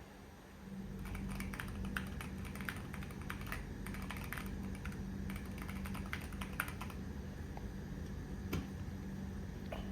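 Typing on a Keychron Q1 HE keyboard with magnetic Hall-effect switches: a quick run of key clicks lasting about six seconds, then a couple of single keystrokes near the end.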